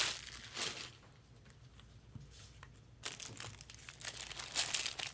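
Plastic card packaging crinkling and rustling as it is handled. The noise fades about a second in, then picks up again about three seconds in and grows toward the end.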